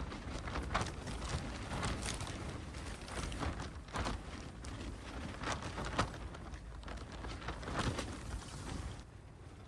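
Footsteps in snow at a walking pace, a short scuff about once or twice a second over a low rumble.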